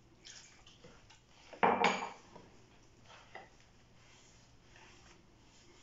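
Hands mixing flour and water in a glazed clay dish, with faint rustling and scraping. About a second and a half in comes one loud, short clatter of crockery, like a cup knocking down on a hard surface.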